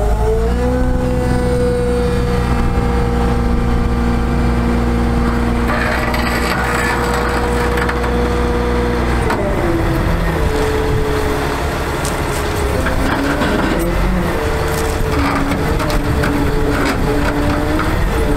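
Bucket truck's diesel engine speeding up and holding a raised, steady speed to drive the hydraulic pump, then dropping back about halfway through and rising and falling unevenly as hydraulic functions are worked from the rear controls. A rough hissing, crackling rush of hydraulic and mechanical noise joins about a third of the way in.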